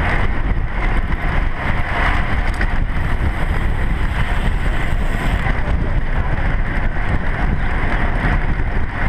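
Steady wind noise buffeting a bike-mounted action camera's microphone while riding at road-cycling speed, a constant rumbling rush with no breaks.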